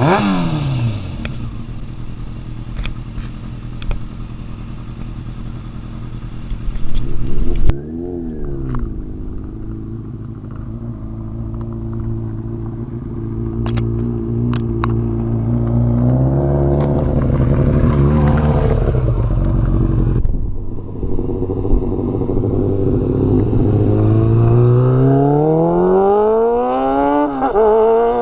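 2000 Yamaha R6's 600 cc inline-four engine running: the revs fall away at the start, then hold steady with a brief rev blip. Near the end the revs climb steadily, drop sharply and climb again.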